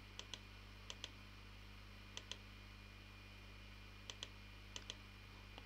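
Computer mouse clicks, each a quick pair of clicks, five pairs at uneven intervals, over a faint steady hum.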